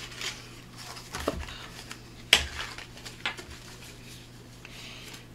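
Paper colour swatch cards being handled and flipped on a table: a few light clicks and rustles, the sharpest click a little over two seconds in.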